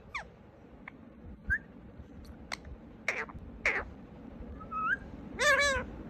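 Indian ringneck parrot giving a string of short chirps and clicks, two longer falling calls in the middle, and a louder drawn-out call near the end.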